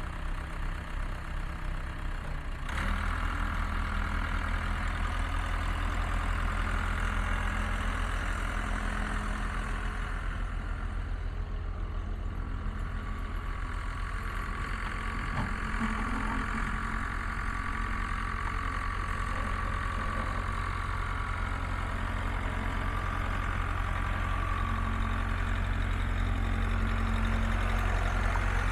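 1979 Case 580C backhoe engine running, lower at first, then picking up to a higher steady speed about three seconds in and holding there.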